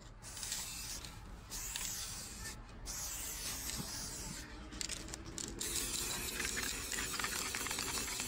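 Aerosol spray paint can spraying graffiti, a steady hiss in long bursts with several short breaks.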